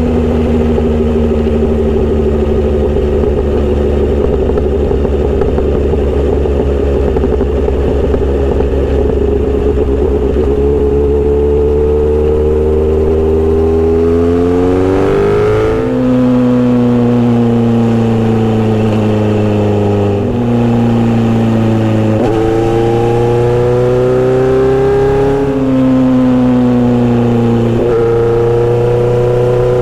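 Kawasaki Z900RS inline-four running through a Misty Kintaro short steel exhaust while riding. It holds steady revs for about half the time, then the revs climb. After that the pitch drops and rises several times as the rider changes gear and throttle.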